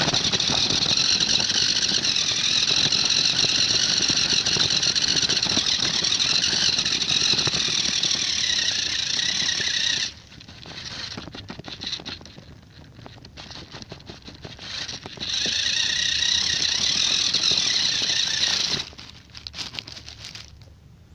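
Toy RC car's electric drive motor whining loudly and steadily, picked up by a phone mounted on the car. It cuts out about ten seconds in as the car runs into brush, runs again for about three seconds, then stops. In the pauses, twigs crackle and scrape against the car.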